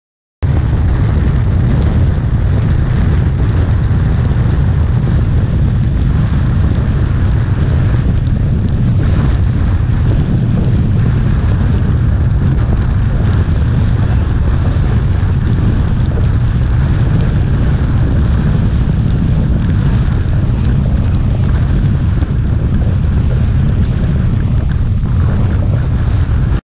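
Loud, steady wind buffeting on the microphone of a camera aboard an open outboard fishing boat running fast through rough, rainy sea. It starts abruptly about half a second in and cuts off suddenly near the end.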